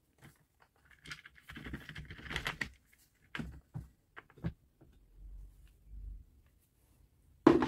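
Plastic clamshell housing of a Milwaukee M18 circular saw being worked apart by hand: rubbing and scraping of plastic on plastic, then a few sharp clicks as the halves come loose, and a loud knock near the end.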